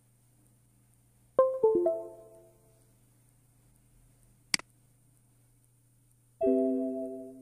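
Windows USB device connect/disconnect chimes as the phone's MediaTek preloader port comes and goes during flashing. A quick run of falling electronic notes sounds about a second and a half in, a single mouse click comes midway, and a held chord of several notes near the end fades slowly.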